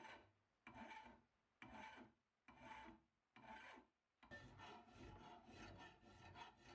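Metal file rasping across a welded steel bracket, dressing down lumpy weld spatter. Separate strokes come about once a second, then quicker back-to-back strokes follow from about four seconds in.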